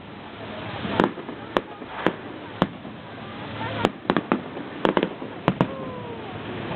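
Aerial fireworks bursting: about a dozen sharp bangs at irregular intervals, coming faster in the second half, over a continuous crackle.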